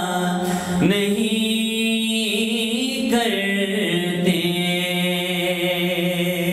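A man's voice singing a naat without instruments, holding long ornamented notes that bend and glide between the lines of verse, over a steady drone.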